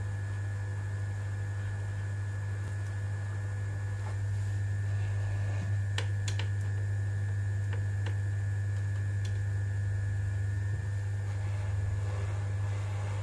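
Hot air rework station running, a steady low hum with a faint airy hiss. A few light clicks come around six seconds in and again near eight seconds.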